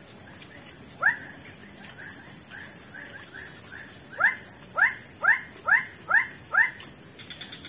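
An animal calling: a single short rising call about a second in, then a run of six rising calls, about two a second, in the second half. A steady high insect drone runs underneath.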